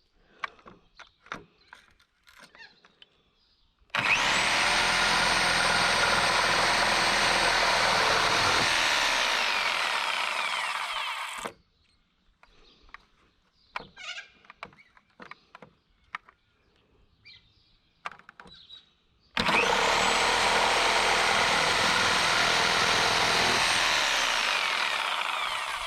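Electric power saw cutting wood in two runs of about seven seconds each: the motor spins up to a high whine, runs under load, then winds down when released. Light knocks and handling clicks in between.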